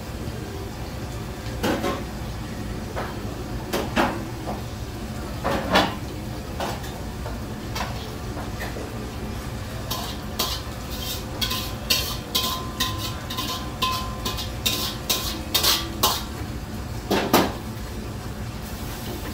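Metal spatula knocking and scraping in a wok: a few scattered knocks at first, then a quick run of sharp clanks for several seconds and one loud clank near the end, over the steady rumble of the wok burner and kitchen hood.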